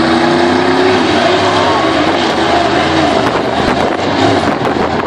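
Monster truck engine revving hard as the truck drives and rears up on its rear wheels; the pitch climbs slowly, then drops about two seconds in.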